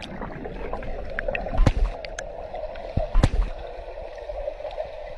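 Water heard through a submerged camera: steady muffled rushing with bubbles gurgling, broken by two sharp knocks about one and a half and three seconds in.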